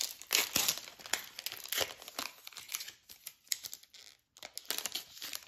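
Foil wrapper of an NBA Hoops trading-card pack crinkling and being torn open, an irregular run of crackly rustles, loudest in the first couple of seconds.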